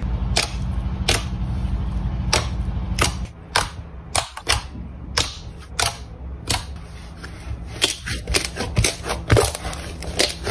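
Fingers pressing and poking a lump of purple glitter slime, making sharp, irregular sticky clicks and pops about one or two a second.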